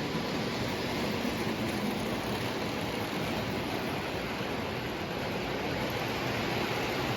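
O gauge electric model train running on its track, a steady even rumble of wheels and motor.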